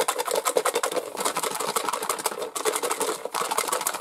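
Folded paper slips rattling inside a small handmade card box that is shaken hard by hand to mix the lots for a draw: a rapid, continuous clatter.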